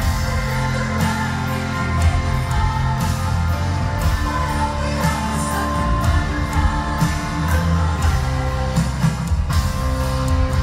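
Live pop-rock band playing a song, heard from the audience: guitar, drums and bass with a lead vocal singing.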